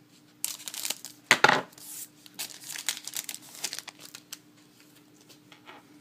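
Foil trading-card pack wrappers crinkling and tearing open as hockey card packs are unwrapped and handled, with one sharper rip about a second and a half in; the rustling dies down over the last second or two.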